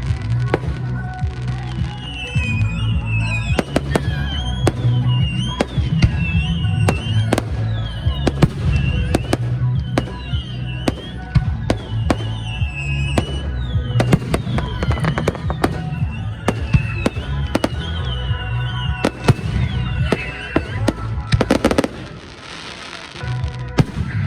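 Fireworks display: many bangs and booms in rapid, irregular succession over loud music.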